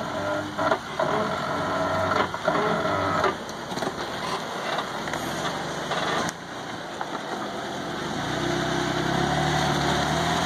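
Jeep Wrangler JK's engine running under load as it crawls its front tire up a rock ledge, the engine note growing louder about eight seconds in.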